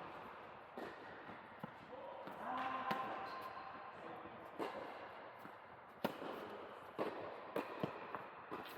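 Tennis balls struck by rackets and bouncing on an indoor hard court: a string of sharp pops at uneven spacing, some about a second apart, with the hall's echo behind them.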